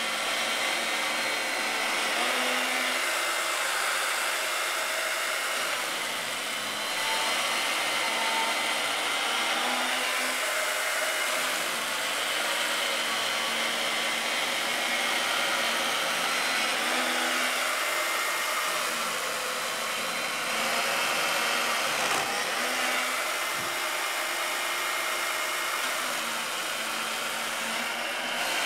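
Electric chain morticer running under load, its chain cutting a mortise into a timber beam and throwing out wood chips. A steady motor and chain noise, dipping briefly about six seconds in.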